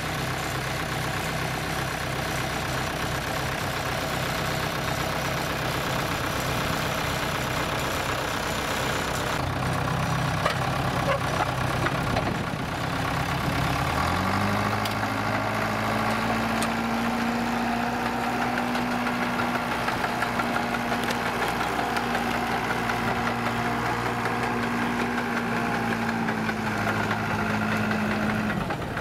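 1970 Case 350 crawler loader's engine running steadily at low revs, then revving up about halfway through and holding the higher speed, dropping back just before the end.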